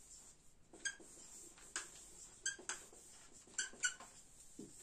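Dry-erase marker squeaking against a whiteboard while a word is written: about six short, high squeaks spread over a few seconds, with fainter scratchy strokes between them.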